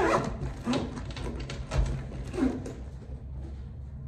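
Short wordless vocal sounds from a woman, one near the start and one a little past the middle, with light clicks and rustles of things being handled, over a steady low hum.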